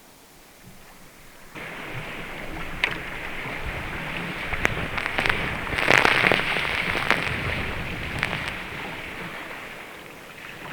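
Breaking surf around a sea kayak: a rush of whitewater and spray that starts suddenly about a second and a half in, swells to its loudest around six seconds, then fades, with sharp splashes through it.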